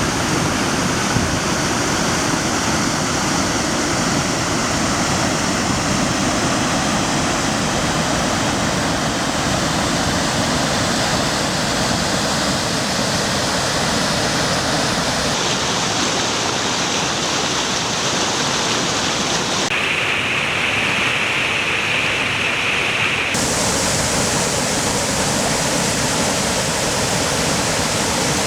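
Waterfall rushing at a steady loudness. About halfway through its tone turns duller, and a few seconds later it becomes a thinner, higher hiss for about three seconds before returning to the fuller rush.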